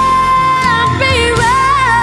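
Background music from a song: a sustained melody line with a held note that wavers slightly in pitch in the second half.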